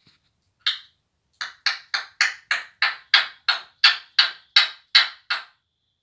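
African grey parrot making one sharp click, then a run of about thirteen sharp, evenly spaced clicks, roughly three a second, each quickly dying away.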